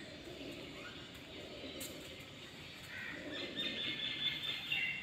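Birds chirping and calling over faint outdoor background noise, with the chirping busiest in the last second and a half.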